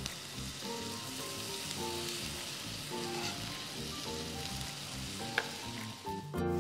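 Chicken breasts sizzling as they fry in oil in a cast iron skillet, a steady high hiss, with one sharp click a little over five seconds in.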